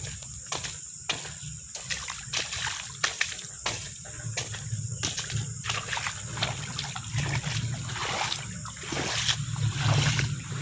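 Floodwater splashing and sloshing, with many short irregular clicks and splashes that get busier in the second half.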